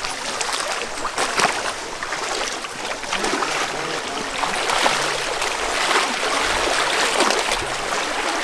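Steady rush of a rainforest stream's water, with faint voices in the background.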